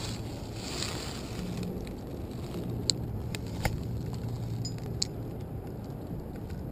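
Steady low rumble of wind on the microphone while a spinning rod is cast and reeled, with a few sharp clicks from the spinning reel around the middle.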